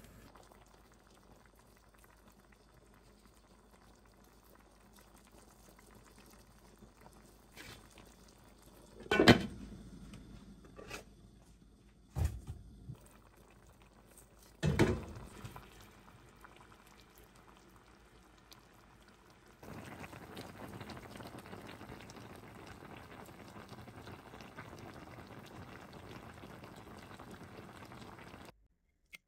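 Broth boiling around whole red snappers and greens in an enameled cast iron pan: a steady, even bubbling from about two-thirds of the way in until it cuts off shortly before the end. Earlier come a few sharp knocks, the loudest about nine seconds in.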